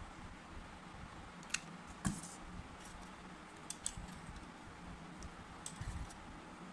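Small clicks and taps from a hot glue gun and a wooden ice-cream stick being handled on a table, the loudest a single knock about two seconds in, over a steady low hum.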